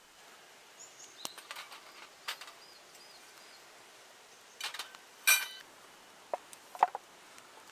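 Camp cooking gear being handled: scattered light clicks and knocks, then a metal clink that rings briefly about five seconds in, the loudest sound, followed by two sharper knocks near the end.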